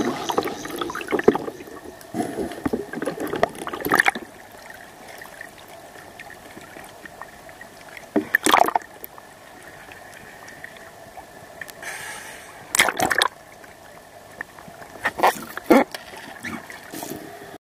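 Water gurgling and splashing close to the microphone, with a few short, loud rushes of water that come some seconds apart.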